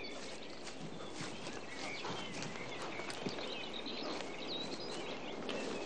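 Horse's hoofbeats as it is ridden through woodland, a few scattered knocks, with birds chirping.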